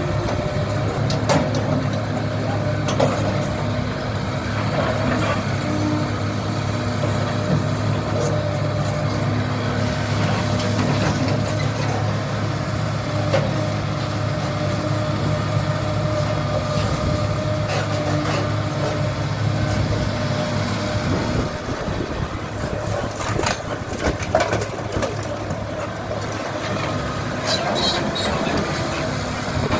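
Kobelco SK75 excavator's diesel engine running steadily under work, with occasional sharp knocks and clanks. The engine tone grows less steady about two-thirds of the way through, where a few louder knocks come close together.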